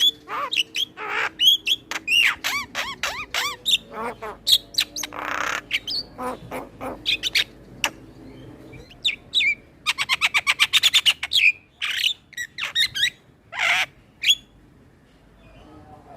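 Male Javan myna singing a varied stream of whistles, chirps and squawks, with a fast burst of about a dozen repeated notes past the middle and short pauses between phrases.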